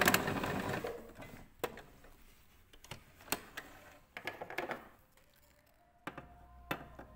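Domestic sewing machine finishing a reverse stitch and stopping about a second in. A few separate sharp clicks follow as the fabric is taken out from under the presser foot, and scissors snip the threads near the end.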